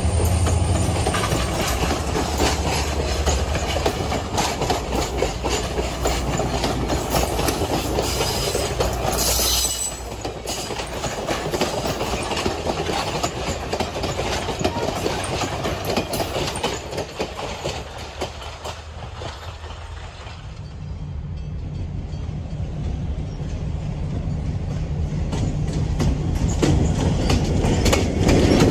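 Passenger coaches rolling past on the rails, their wheels clicking steadily over the rail joints, the sound fading as the train draws away. In the last third a diesel locomotive's engine hum grows steadily louder as it approaches.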